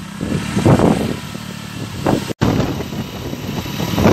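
Storm wind buffeting the microphone in irregular gusts over a steady hiss of heavy rain. The sound drops out for an instant a little past the middle.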